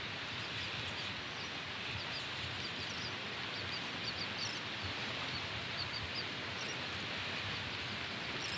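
Steady rush of running water, with faint, scattered high chirps of small birds.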